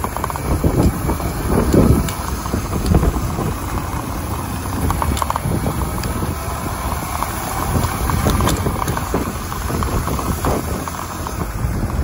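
Wind buffeting the microphone of a small electric dirt bike ridden along a dirt path, with tyre rumble and gusty, uneven swells of noise.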